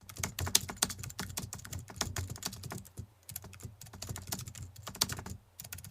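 Fast typing on a computer keyboard: a dense, irregular run of key clicks that breaks off briefly about three seconds in and again near the end.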